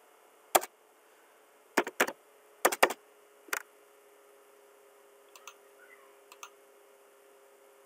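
Computer mouse clicking about six times in the first four seconds, some clicks in quick pairs, then a few fainter clicks, as lines are picked one by one in a CAD trim command. A faint steady hum runs underneath.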